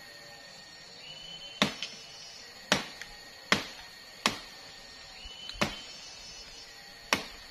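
Machete chopping into sugar palm (aren) frond stalks: six sharp blows at uneven intervals, roughly a second apart, with a light extra knock just after the first.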